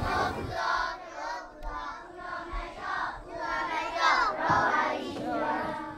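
A class of young children chanting a prayer together in unison, in short rhythmic phrases.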